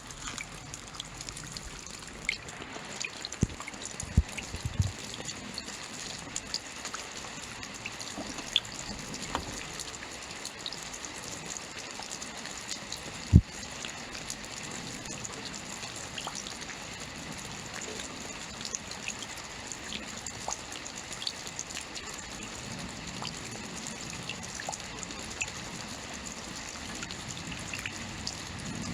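Steady rainfall hiss with many separate drops ticking on a surface, and a few heavier drip impacts, the loudest about thirteen seconds in.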